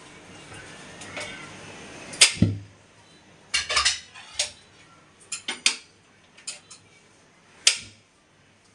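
Metal gas-stove parts being handled: a string of sharp, irregular clinks and knocks, the loudest about two seconds in and near the end, after a couple of seconds of faint steady hiss.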